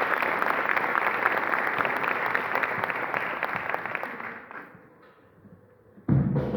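Concert audience applauding, the clapping dying away about four to five seconds in. After a brief hush, the orchestra comes in suddenly near the end with a loud, low drum beat.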